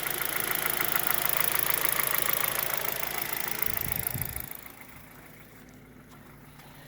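Hyundai G4FC 1.6-litre four-cylinder engine idling half-warm with a rapid, steady knock. It comes only once the engine warms, and the owner suspects piston slap or valves closing up. A new timing chain, tensioner and cam phaser have not cured it. About four seconds in there is a low thump, and the engine then sounds much quieter.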